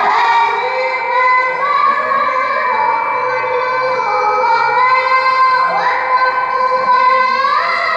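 A girl reciting the Quran in melodic tilawah style, holding one long, high, ornamented phrase without a breath. Her pitch steps up twice in the last couple of seconds.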